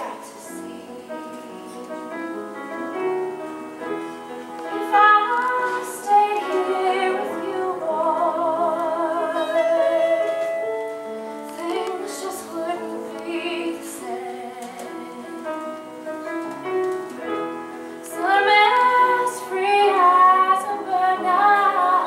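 A woman singing with instrumental accompaniment, holding long notes with vibrato.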